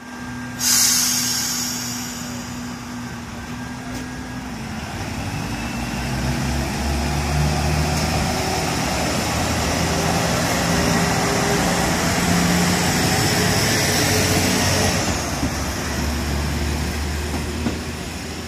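JR Central KiHa 25 diesel railcar departing: a sudden loud hiss of released air about a second in, then the diesel engine running up under power, its pitch rising as the train accelerates away, with a steady low drone underneath.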